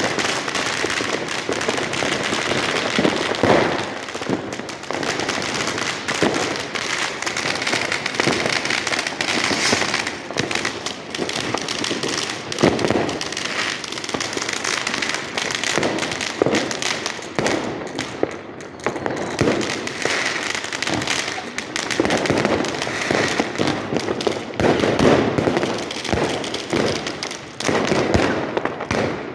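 New Year's Eve fireworks and firecrackers going off continuously, a dense crackling with many overlapping bangs and pops.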